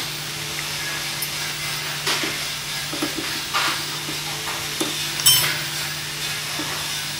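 Hands unscrewing and handling the metal fuel-valve knob and brass fitting of a fogging machine: a series of small metallic clicks and scrapes, the sharpest about five seconds in, over a steady hum and hiss. The parts are being removed to get at the fuel jet that tends to clog.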